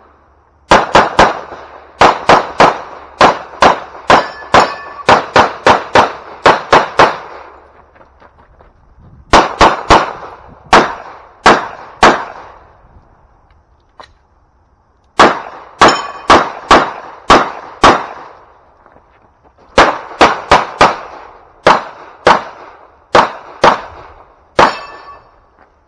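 Pistol fire from a 9 mm Glock 17: four rapid strings of sharp shots, several a second, with pauses of one to three seconds between strings.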